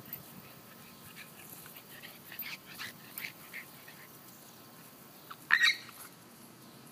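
Brief high-pitched cries from a Boston Terrier puppy and a cat tussling: a few short calls in the middle and one loud, sharp cry about five and a half seconds in.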